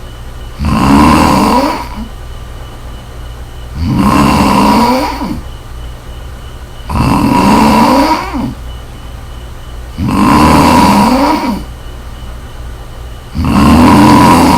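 Loud snoring in a steady rhythm: five long snores about three seconds apart. A steady low hum runs underneath.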